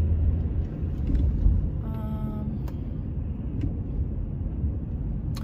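Car moving along a road, heard from inside the cabin: a steady low rumble of engine and tyre noise. A short tone sounds for about half a second about two seconds in.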